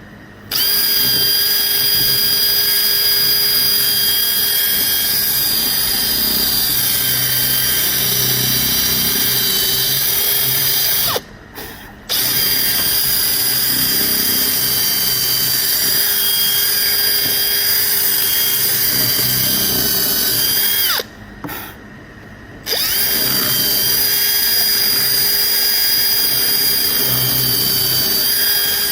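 Electric drill running steadily under load, its bit boring away the wood around an embedded 16-penny nail to free it. It stops twice for about a second, each time after a slight drop in pitch.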